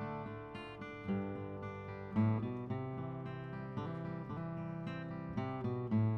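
Instrumental music on acoustic guitar, chords picked and strummed at a moderate pace.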